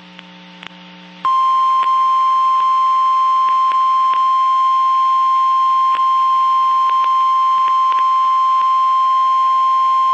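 NOAA Weather Radio warning alarm tone: a single steady tone at about 1050 Hz that comes on about a second in and holds unchanged, after a moment of faint receiver hum. It is the attention signal that an emergency alert message is about to be read.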